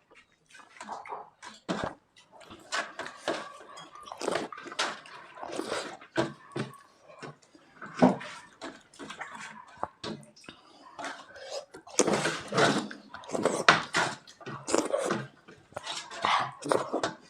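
Wet eating sounds of people eating dal and egg curry: lip smacks, chewing and slurps coming in quick, irregular bursts, busiest from about twelve seconds in.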